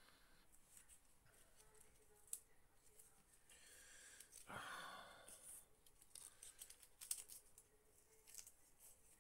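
Near silence: faint scattered clicks, with a short rustle about halfway through.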